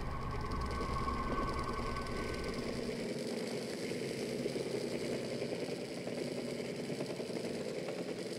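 A steady mechanical running sound, an engine-like rattling clatter. A low hum and a held tone underneath it fade out about three seconds in.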